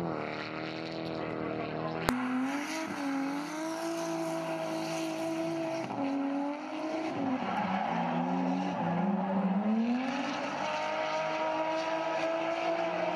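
Drift car engines revving hard, the pitch climbing, holding and dropping away several times as the cars slide through a corner, with tyres squealing. A single sharp click about two seconds in.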